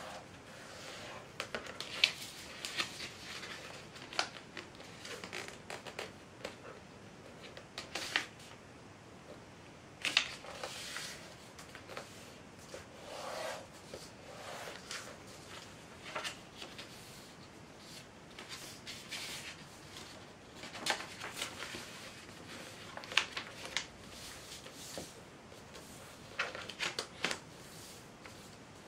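A sheet of printer paper being folded by hand into a dart paper airplane: irregular rustling and crinkling, with sharp crackles as folds are made and creased.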